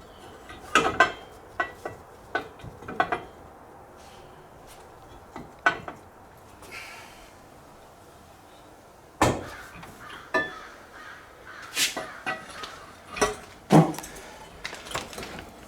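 Scattered metal clinks and knocks of tools and parts being handled while the rod guide is worked off a backhoe's hydraulic boom cylinder. Some hits ring briefly.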